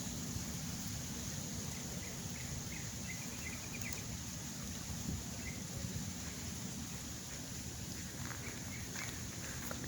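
Outdoor ambience: a steady low rumble, with a short run of faint bird chirps about two to four seconds in and a few more near the end.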